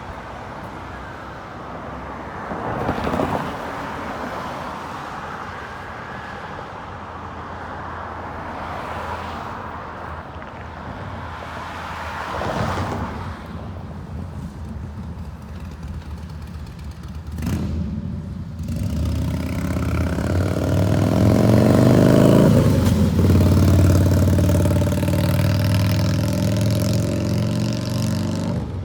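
Street traffic: vehicles pass by about three seconds in, again about twelve seconds in and about seventeen seconds in. Then a large vehicle's engine accelerates with rising pitch, loudest a little after twenty seconds, and eases off near the end.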